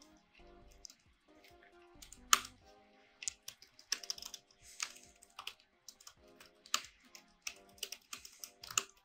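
Typing on a computer keyboard: irregular key clicks, with one louder click a little over two seconds in, over faint background music.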